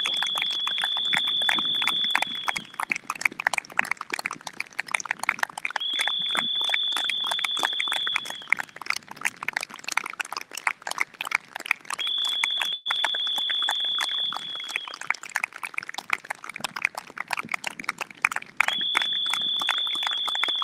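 A group of people applauding, dense clapping throughout. A high steady tone lasting about two and a half seconds sounds four times over it, about every six seconds.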